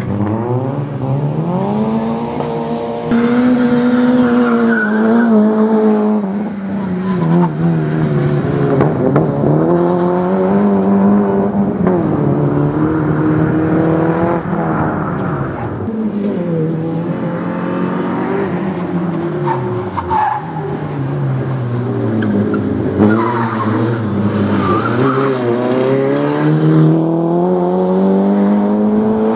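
Peugeot 106 rally car's engine revving hard and dropping again and again as it is driven through the tight course, rising with each acceleration and falling at each lift or gear change. Tyres squeal at times in the turns.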